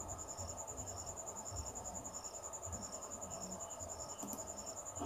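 Faint, steady, high-pitched pulsing chirp in the background, repeating at an even rate, with a single mouse click near the end as a font is picked from the menu.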